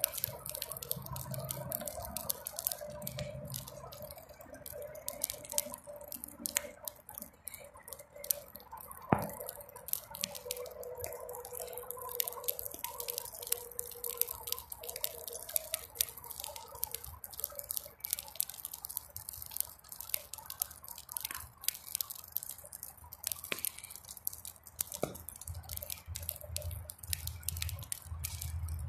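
Bonfire of weeds and manure crackling with many small irregular pops, the sharpest about nine seconds in.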